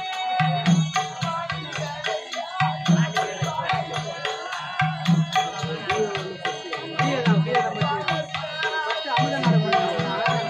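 Live therukoothu folk-theatre music: a hand drum plays a fast rhythm in repeating phrases, broken by short pauses, under a long held note and a melody that slides up and down.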